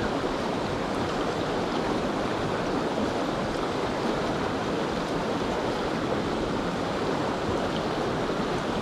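Mountain trout river flowing steadily: an even, unbroken rushing of water.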